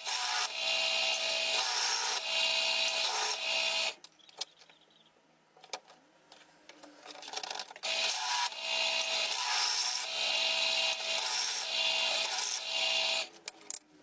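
Hand tool scraping back and forth in repeated strokes, roughly one a second, in two runs with a pause of a few seconds between them that holds only a few light clicks.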